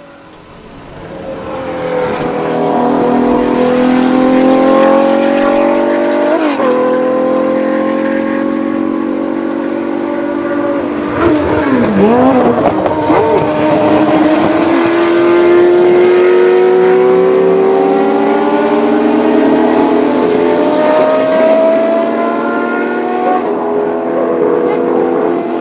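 Jaguar XJR-5 race car's 6.2-litre naturally aspirated V12 accelerating at full throttle. Its pitch climbs in long rising sweeps, broken by gear changes.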